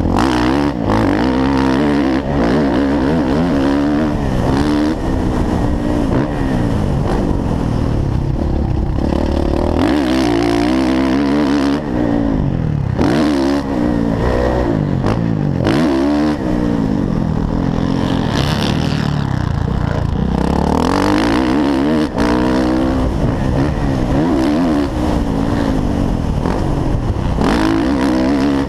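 Motocross dirt bike engine revving hard and falling off again many times as the rider works the throttle and shifts gears, heard through a helmet-mounted action camera.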